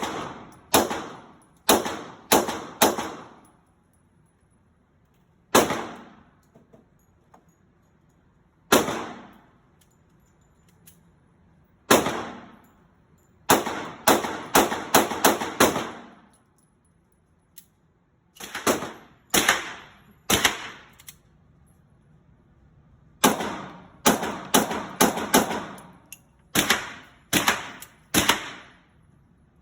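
Gunshots at a shooting range: about thirty shots in all, some single and some in quick strings of four to six, each with a short echoing tail.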